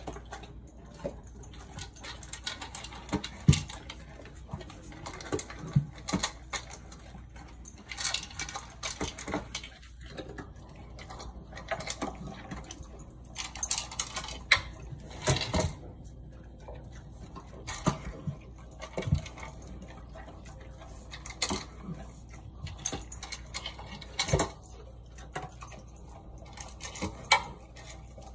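Large dog eating dry kibble from a plastic slow-feeder bowl: irregular crunching and chomping, with clicks and knocks of teeth and kibble against the bowl.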